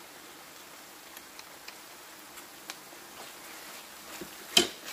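Chicken and onions frying under a low steady sizzle while a wooden spatula stirs tomato paste through them, ticking against the metal pan now and then. One sharper knock comes near the end.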